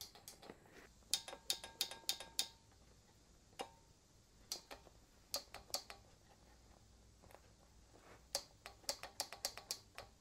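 Sharp clicks in short clusters, several a second, with pauses between: the switches and valves of a homemade rocket-engine control rig being clicked on and off as they are tested.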